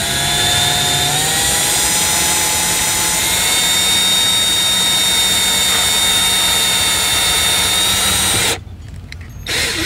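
Cordless drill turning a hole saw into a car's door panel. The motor speeds up over the first second, then runs steadily under load while cutting. It stops abruptly about eight and a half seconds in.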